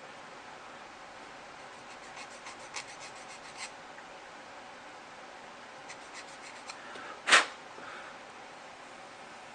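Small plastic parts of a wind-up model kit being handled: a quick run of light clicks, a few more clicks, then one louder sharp click or snap about seven seconds in.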